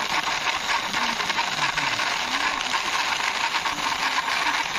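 Plastic toy double-decker bus pushed by hand along a rough concrete wall top: its wheels rolling with a steady, gritty crackling rattle.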